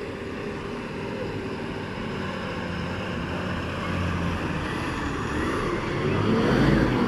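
Tata bus's diesel engine labouring up a steep, rough dirt track, growing steadily louder as the bus approaches and loudest near the end as it passes close by.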